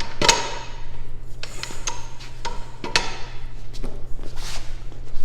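Steel pipe clanking and knocking in a pipe bender as it is worked back, a dozen or so irregular metallic knocks with short rings, over a steady low hum.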